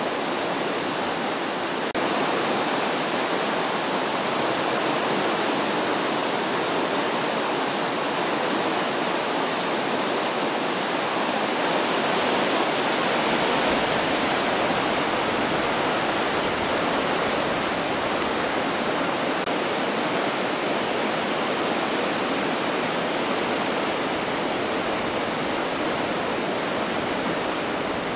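River in flood: fast, churning floodwater rushing in a steady, loud roar. It gets a little louder about two seconds in and swells slightly near the middle.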